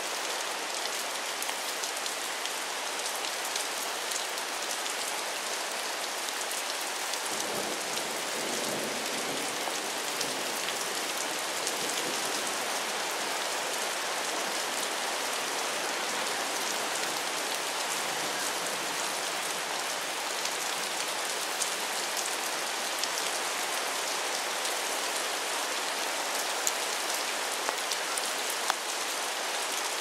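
Steady rain falling on a river's surface, a dense even hiss, with a few sharper drop taps in the last several seconds.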